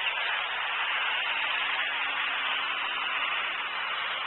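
Steady, even hiss of static on the nest camera's audio feed, with no distinct calls.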